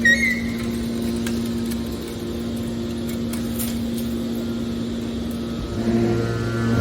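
Hydraulic car baler's power unit running with a steady, pitched hum. There is a brief high squeal at the start, and the machine grows louder and deeper about six seconds in.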